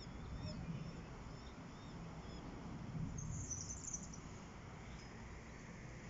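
Small birds chirping, with a short bout of high-pitched twittering about three seconds in, over a low steady rumble.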